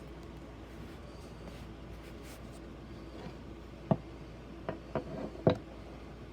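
A few sharp clicks and light knocks of PC hardware being handled, four in quick succession near the end, over a faint steady hum.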